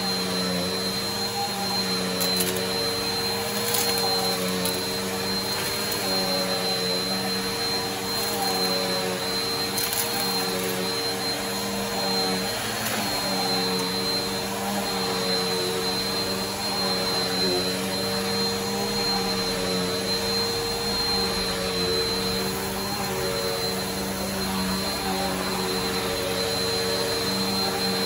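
Upright bagless vacuum cleaner running steadily over carpet with a high whine. A few brief clicks come in the first ten seconds as it sucks up a small pile of debris.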